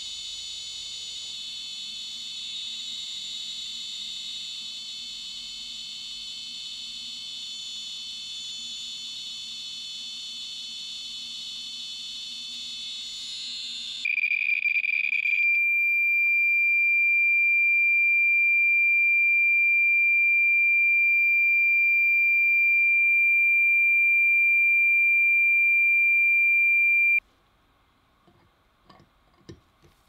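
A Geiger counter's clicks come so fast, near 900 thousand counts a minute off a radioactive smoke-detector source, that they blur into a dense high buzz. About 14 seconds in, a Thermo RadEye B20 survey meter sounds instead: a single steady high-pitched tone, louder, which cuts off suddenly. A few faint taps follow near the end.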